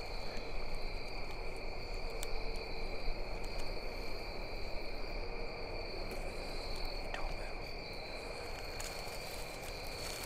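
Crickets trilling steadily in a continuous high-pitched chorus, over a soft rustling noise.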